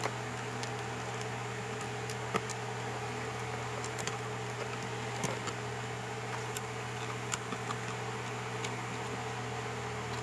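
Steady mechanical hum with an even hiss, like a fan or appliance running, with faint light clicks scattered through it.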